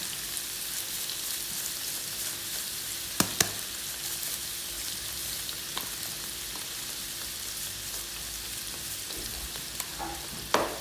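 Diced boiled potatoes sizzling and crackling in hot oil in a frying pan, with a few sharp clicks about three seconds in and near the end.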